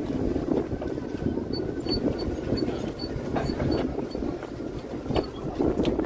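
Pier shuttle vehicle driving along, its running noise mixed with wind rushing over the microphone, with a few faint ticks.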